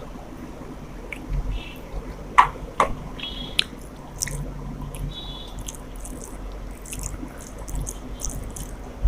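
Close-up eating sounds: chewing and wet squishing of rice and curry, with a few sharp clicks about two and a half to three seconds in.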